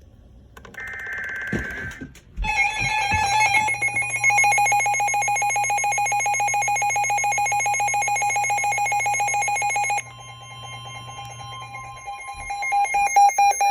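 Weather radio emergency alert tones announcing a new warning. A short burst of data tones comes first, then a loud, fast-pulsing electronic alarm beep with a steady tone beneath it. The beeping drops away about ten seconds in and comes back loudly near the end.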